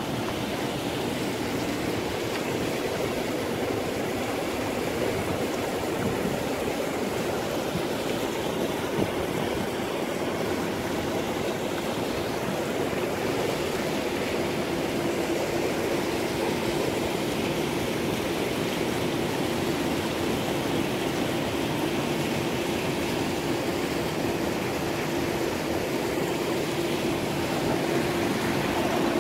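Steady splashing rush of water from a swimming pool's rock waterfall and bubbler fountain, with a steady motor hum that grows stronger about halfway through. Near the end the churning of hot tub jets is added.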